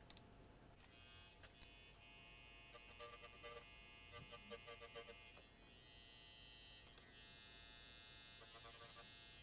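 Battery-operated grinding pen buzzing faintly as its tip grinds at a motherboard trace beside a via whose pad has corroded away. It starts about a second in and runs steadily with a slight flutter.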